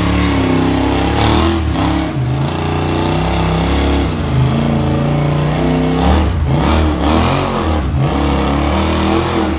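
Wildcat side-by-side UTV engines working on a rocky trail climb, revving up and dropping back in short throttle blips as the machines crawl over the obstacle.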